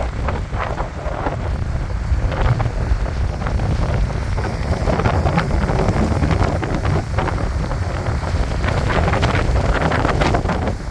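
Strong wind buffeting the microphone: a loud, steady low rumble with irregular gusts.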